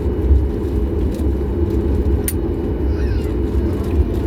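Steady low rumble in the cabin of a Boeing 737 MAX 8 parked at the gate, with a single sharp click about two seconds in.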